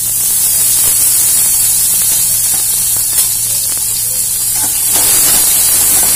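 Hot oil sizzling steadily in an aluminium kadai as shallots and garlic start to fry, with a few faint knocks of a ladle.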